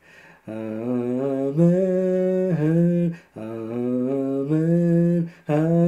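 A man singing "Amen" over and over in long, slow held notes, stepping between a few pitches, with short pauses for breath between phrases.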